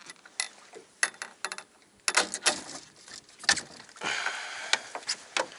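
Irregular clicks and knocks of fishing gear being handled on a boat, as a landing net is picked up off the deck. A short rushing noise comes about four seconds in.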